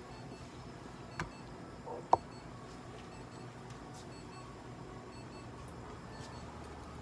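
Quiet exam-room hum with faint short electronic beeps repeating, from clinic equipment. A single sharp click comes about a second in, and a brief sharp sound about two seconds in is the loudest moment.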